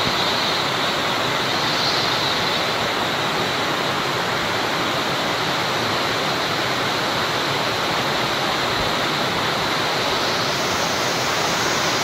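Steady hiss of falling rain.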